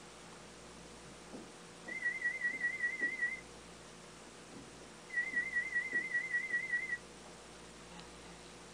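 Audiometer warble tone, a high wavering beep, sounded twice, each time for about a second and a half to two seconds. These are test tones in an aided hearing test with a cochlear implant, played over a sound-field loudspeaker.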